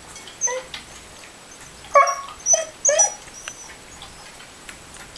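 Corgi whimpering and yipping: a few short, high whines, most of them about two to three seconds in.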